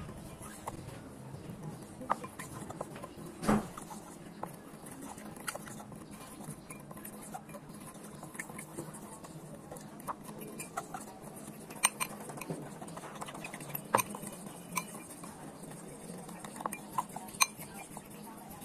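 Metal fork clinking and scraping against a glass bowl while stirring a flour batter: irregular light clicks, with a louder knock about three and a half seconds in.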